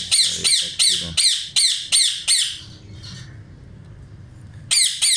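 Parrot squawking over and over, sharp calls that each fall in pitch, about two and a half a second. The squawks stop about two and a half seconds in and start again near the end.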